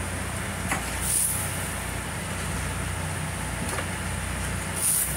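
Steady low machinery hum, with two short high-pitched hisses, one about a second in and one near the end, and a couple of faint clicks.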